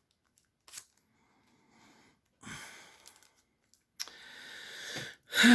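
Trading cards being handled and flipped through: soft rustles and a tap, then a card sliding with a swelling hiss. A short sigh with falling pitch comes right at the end.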